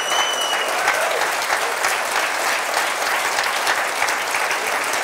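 Audience applauding, a dense steady clatter of many hands clapping, with a short high whistle right at the start.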